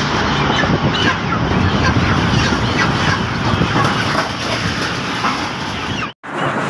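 Many broiler chickens squawking and clucking at once in a dense, continuous din, with wings flapping as birds are pushed down a metal chute. The sound cuts out for a moment near the end.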